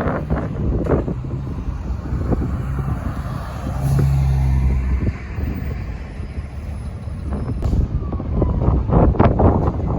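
City bus engine running close by, its low hum swelling to its loudest about four seconds in and then easing off. Wind buffets the microphone at the start and again near the end.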